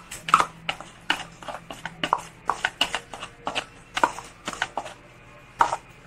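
A spoon scraping tomato paste out of a plastic tub into a bowl, knocking and scraping against the tub: a run of sharp clicks about two or three a second, with a short pause near the end.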